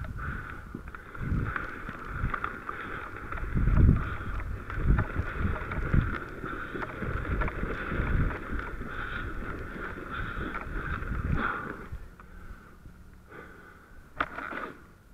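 Steady scraping of a rescue dummy dragged over asphalt, with irregular low thumps of wind and movement on a body-worn microphone; the scraping stops about twelve seconds in.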